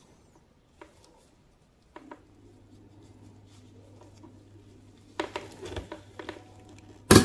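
Rubber-gloved hands handling hookup wires and crocodile clips: scattered small clicks and rustles, a faint low steady hum setting in about two seconds in, a cluster of clicks a little past five seconds, and one sharp loud click near the end.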